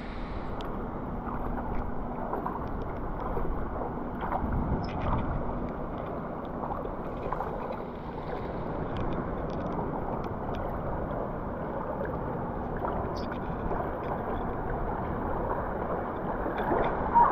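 Steady rushing of flowing river water, with a few faint clicks scattered through it.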